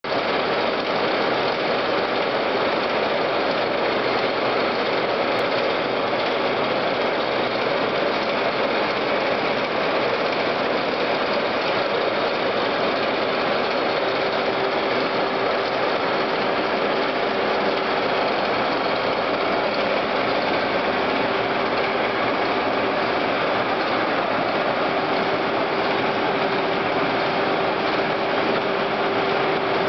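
Steady running noise of heavy shop machinery with a constant hum, never starting or stopping.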